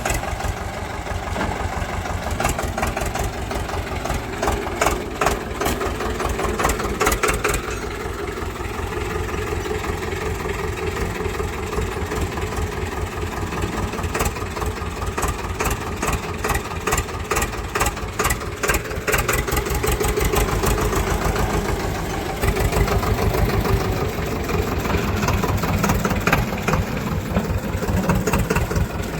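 Swaraj tractor's diesel engine running steadily with an even, rapid firing beat, its level rising and falling a little.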